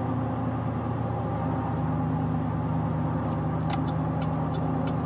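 GMC Sierra's V8 engine and road noise at a steady cruise, a constant low hum. About three seconds in, a regular ticking starts, a few ticks a second.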